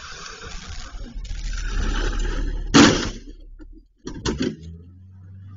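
A car's engine building up as it comes into the snowy drive, then one loud crash about three seconds in as it strikes the parked cars. A couple of knocks follow about a second later, then a steady low hum.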